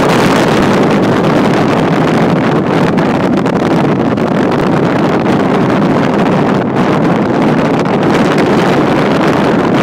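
Strong wind blowing across the microphone: a loud, steady rushing with no breaks.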